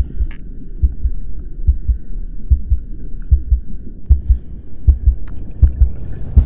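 Heartbeat sound effect: slow, low thumps coming a little faster than one a second, with a faint steady high tone behind them.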